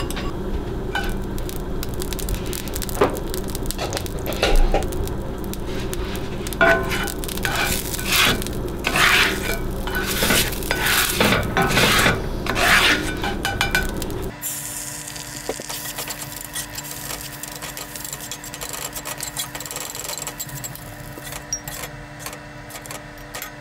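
Spatula scraping scrambled egg out of a cast iron skillet into a ceramic bowl: repeated scrapes and knocks against the pan and the bowl rim over a steady low background noise. About fourteen seconds in, the background noise drops away and the scraping goes on more faintly.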